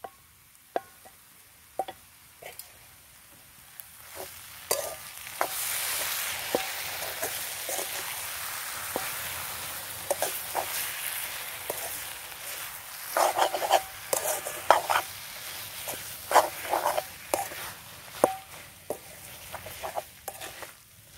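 Gongura (sorrel leaf) and coconut mixture frying in a metal wok, a steady hiss of sizzling that begins about four seconds in, with a steel spoon tapping and scraping against the pan as it is stirred. The scraping and clinking come in quick clusters in the second half.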